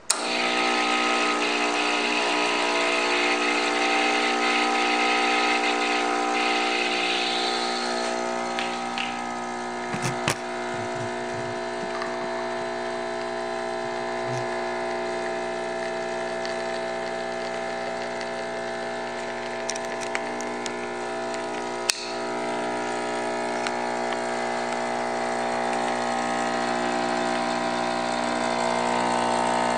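Expobar Athenea espresso machine's pump running with a steady hum while pulling an espresso shot. It starts abruptly when the brew button is pressed, with a couple of sharp clicks partway through.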